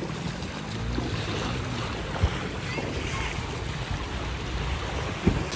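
Choppy sea surf washing and splashing in the shallows, with wind rumbling on the microphone. Two brief thumps come about three seconds apart.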